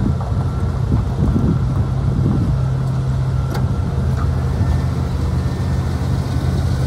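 1994 Chevrolet 3500 crew cab pickup's engine idling with a steady low hum, with a single sharp click about halfway through.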